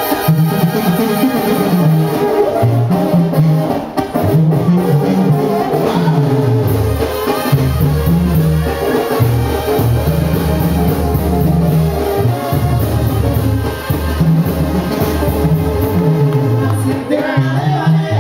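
Live banda sinaloense music: trumpets and clarinets play over a tuba bass line that steps from note to note, with the bass dropping lower and holding through the middle.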